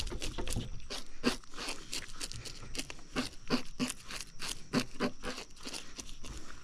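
Knife cutting a fish being filleted along the backbone: a run of short, sharp cutting strokes, several a second, at an uneven pace.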